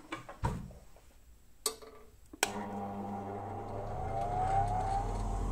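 Cheap bench grinder, its wheels not yet balanced, switched on with a sharp click after a few knocks; its electric motor then hums steadily with a faint rising whine as the wheels come up to speed, the hum growing louder.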